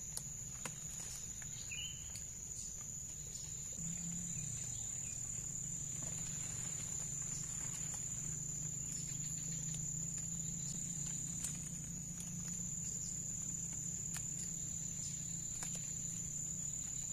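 Steady, high-pitched drone of an insect chorus, crickets or cicadas, with a low hum underneath and a few faint clicks and rustles.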